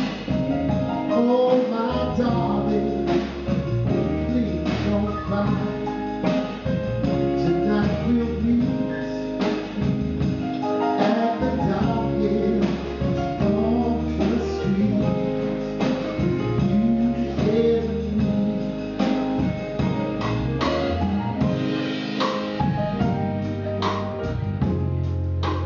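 Live soul ballad: a man sings into a microphone over electric guitar and drum kit, at a steady level throughout.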